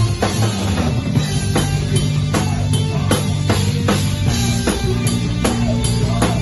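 A live rock band playing loud: a drum kit keeps a steady beat, with a hit about every half second, over electric guitar.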